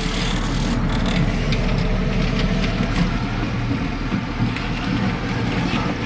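Heavy-haulage truck rig running steadily, heard from inside a cab: a low engine and road drone with faint scattered clicks and rattles.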